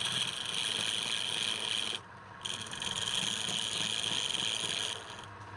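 Wood turning on a lathe, a tool or abrasive held against the spinning workpiece: a steady hissing rasp in two passes, with a short break about two seconds in.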